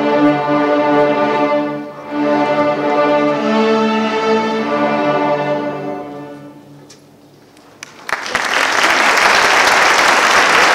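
Elementary school string orchestra of violins, cellos and basses playing long held chords that fade out about six seconds in. After a short hush, the audience starts applauding about eight seconds in.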